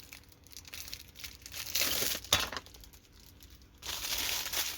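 Packaging of a diamond painting kit being handled, crinkling and rustling in two bouts, the second near the end.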